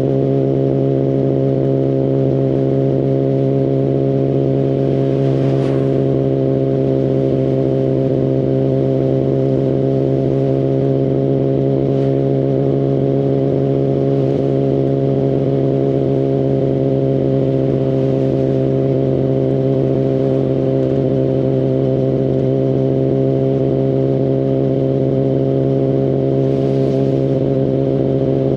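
2019 Kawasaki Ninja ZX-10RR's inline-four engine through an Akrapovic Evolution carbon full exhaust, running at one steady engine speed with an unchanging note and no revving.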